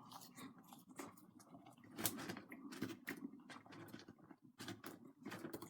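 Close-up chewing of food, with soft, irregular wet mouth clicks.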